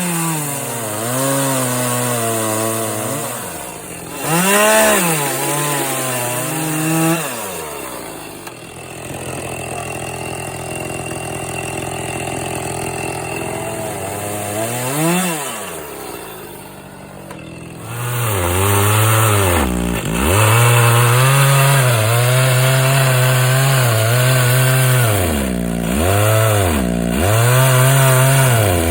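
Chainsaw running and cutting slots into log ends to make Swedish torches, the engine pitch rising and falling again and again, with a quieter, steadier stretch in the middle before it runs loud again.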